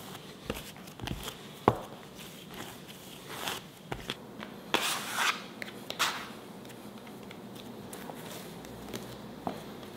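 Bread dough being kneaded by hand on a bamboo cutting board: irregular thumps and slaps as the soft dough is pushed and thrown against the wood, with brief rubbing scrapes. The sounds are busiest in the first six seconds and sparser after. This is the hand-kneading stage that builds the gluten.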